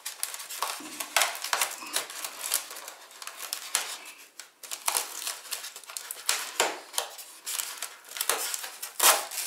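Hands working packaging: an irregular run of crinkles, scrapes and small clicks from cardboard, tape and plastic as the foam plane is freed from its box.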